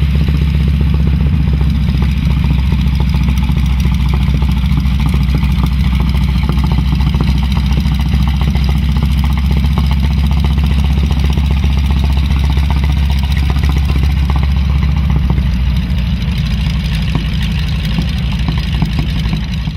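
North American T-6 Texan (Harvard) taxiing close by, its nine-cylinder Pratt & Whitney R-1340 Wasp radial engine running at low power in a loud, steady drone. The low rumble eases slightly near the end.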